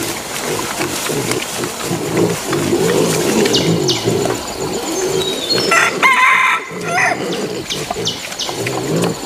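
Wild boar sow and piglets grunting steadily as they feed, with a rooster crowing once, about six seconds in, for a little over a second.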